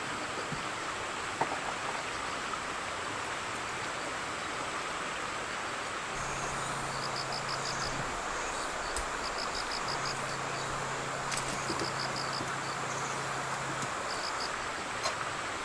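Insects chirping in short, fast pulsed trills that recur several times from about six seconds in, over a steady outdoor hiss. A low steady hum comes and goes in the second half, and there are a couple of light knocks.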